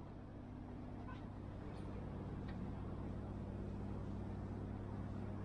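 A steady, low engine drone that grows gradually louder, with a few faint, short, high chirps in the first half.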